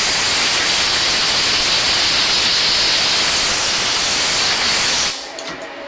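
Compressed-air blow gun blasting chips off a milling fixture and its machined parts: a loud, steady hiss that cuts off about five seconds in.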